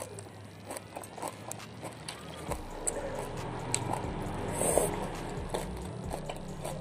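Close-up eating sounds of someone eating with their hands: wet chewing with scattered small mouth clicks and lip smacks.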